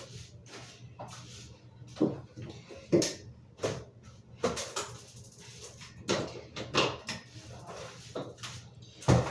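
Irregular knocks and clatters of household things being handled and set down, and cabinet doors shutting, while a bathroom is tidied.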